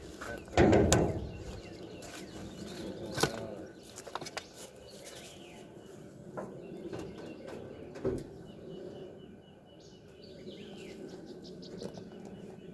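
Scattered metallic knocks and clicks from hand work on a truck's hood, with a heavy thud about half a second in. Small birds chirp faintly in the background.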